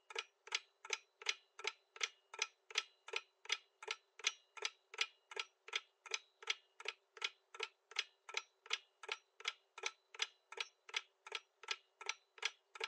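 Quiz countdown-timer sound effect: an even, clock-like ticking, about three ticks a second, marking the time left to answer.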